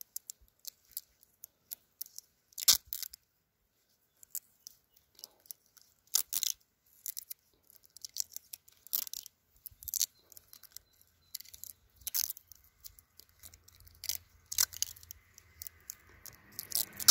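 Plastic grafting tape pulled off its roll and stretched tight around a fresh walnut graft to bind it, giving irregular short crackles and rips every second or two.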